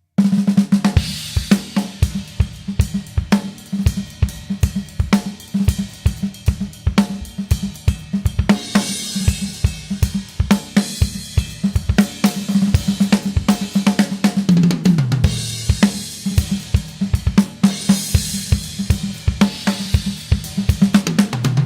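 Premier XPK drum kit, fitted with new heads, played in a fast groove of bass drum, snare and hi-hat with crash cymbals. A tom fill falls in pitch about 15 seconds in, with another near the end.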